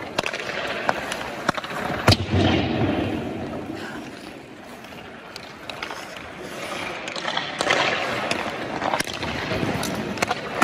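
Ice-hockey goalie's skate blades scraping and carving the ice in surges as he pushes and shuffles across the crease, with sharp clicks here and there and a loud knock about two seconds in.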